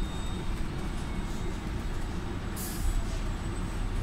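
Steady low rumble of a New Flyer XDE40 diesel-electric hybrid bus heard from inside the passenger cabin, with a brief hiss about two and a half seconds in.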